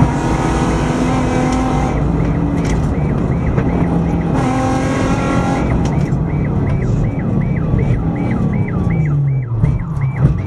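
Nissan 350Z rally car's V6 engine heard from inside the cabin, pulling hard with the pitch stepping at gear changes. Near the end the revs fall away steeply as the car slows, then pick up again.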